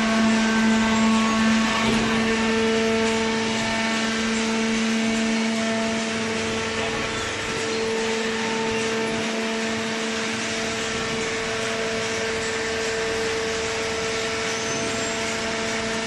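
Hydraulic cardboard baler's motor and pump running with a steady hum: a strong low tone with a higher tone above it over a mechanical noise.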